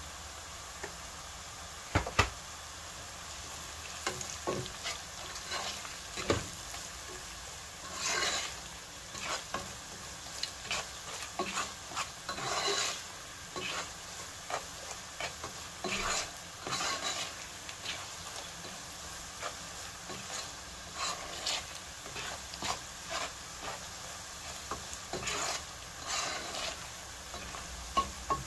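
A plastic spatula stirring and scraping sliced onions, garlic and ground spices frying in oil in a nonstick pot, over a steady sizzle, as the onion-and-spice masala is fried. There are two sharp knocks about two and six seconds in, then irregular scraping strokes.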